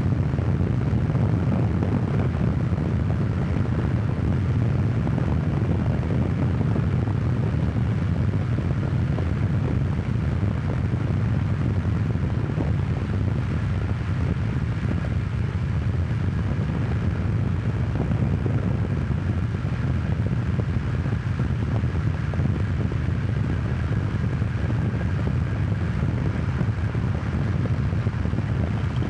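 Steady low rumble of road and wind noise from a car travelling at high speed, close to 95 mph.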